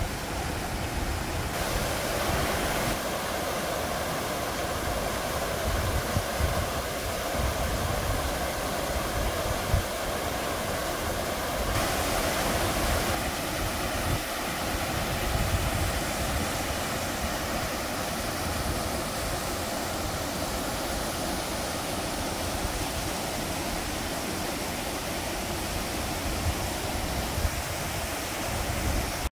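Small waterfalls cascading over rock ledges into a pool: a steady rush of falling water, with an uneven low rumble underneath.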